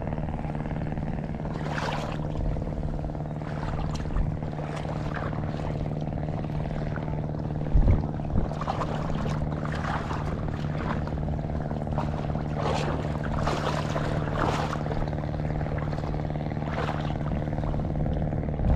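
An engine running steadily, a low hum with even overtones that does not change in pitch, with short rustling noises coming and going over it and a low thump about eight seconds in.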